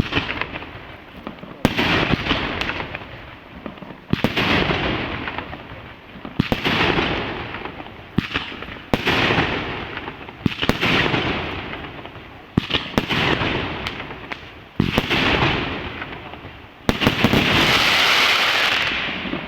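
A 48mm fireworks cake firing shot after shot, about eight in all, a sharp bang roughly every two seconds. Each bang is followed by a fading hiss and crackle from the golden brocade bursts. The last burst, near the end, is the longest and loudest.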